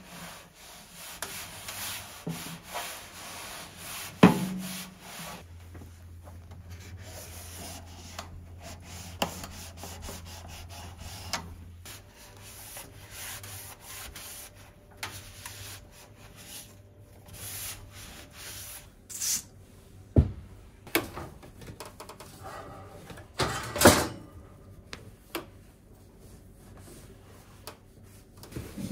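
A cotton cloth wiping and rubbing over a toaster's metal crumb tray and a microwave oven's door in short strokes. A few sharp knocks come from parts being handled, the loudest about four seconds in and near the end.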